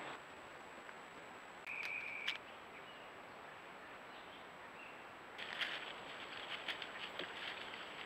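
Trail-camera recording with a steady hiss and a thin high whine; about two seconds in a short steady tone sounds for about half a second, bracketed by two clicks. From about five and a half seconds, rapid ticking and rustling as coatis forage through dry leaf litter.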